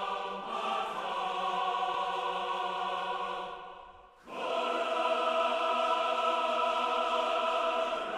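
Choral music with voices holding long, sustained chords. The sound fades away about four seconds in, then a new, louder chord comes in.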